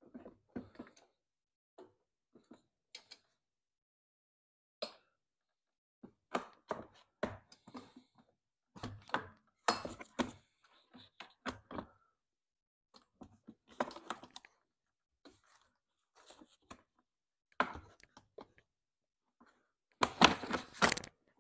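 Scattered clicks, taps and knocks of plastic and metal parts being handled as a push mower's plastic fuel tank and fuel line are refitted to the engine, with a louder cluster of clunks near the end.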